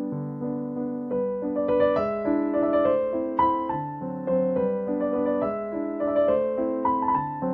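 Background piano music: a gentle melody of sustained notes over chords.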